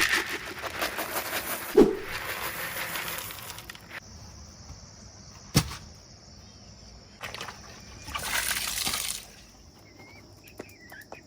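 Chickens' wings flapping and rustling in two noisy stretches, with one short low growl from a broody hen about two seconds in and a single sharp knock in the middle.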